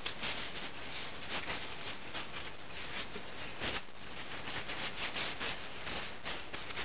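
Faint rustling and scattered small clicks as a small freshly cast iron casting is turned over in the hands, loose moulding sand grating and crumbling off it.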